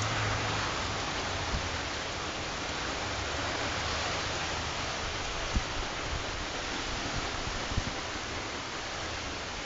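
Strong storm wind with driving rain: a steady rushing noise, with a few brief low thumps of gusts buffeting the phone's microphone.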